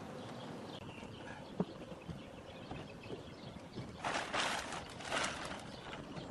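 Plastic tarp rustling and crinkling in two bursts, about four and five seconds in, over a steady outdoor hiss; a single sharp knock about a second and a half in.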